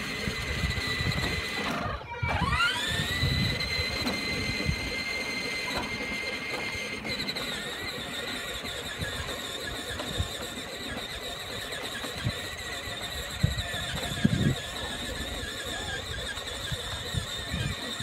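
Electric drive motor and gearbox of a child's battery-powered ride-on toy motorcycle whining steadily as it drives along. About two seconds in the whine cuts out briefly, then rises back up in pitch as the toy gets going again.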